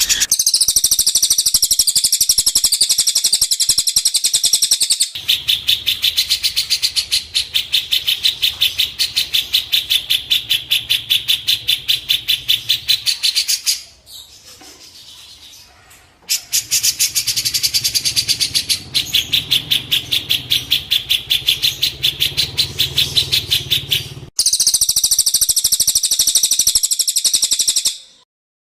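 Recorded songbird call used for training caged birds: long runs of high, evenly repeated sharp notes. The runs stop and restart abruptly, as in an edited loop, with a short break about halfway through, and the sound cuts off just before the end.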